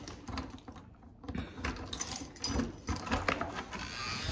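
Keys jangling, with a quick run of irregular clicks and rattles that picks up about a second in.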